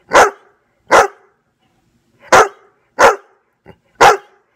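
Newfoundland dog barking: five loud single barks, spaced about a second apart, with a slightly longer gap after the second.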